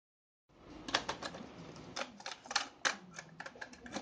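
Mechanical clicks and clacks from a 1970s National Panasonic radio cassette recorder as a cassette tape is loaded into its deck and its piano-key buttons are handled: an irregular string of sharp plastic clicks starting about half a second in.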